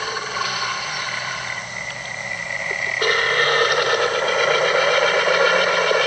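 Designed monster creature sound effect: a rough, noisy growling texture that changes abruptly and gets louder about three seconds in.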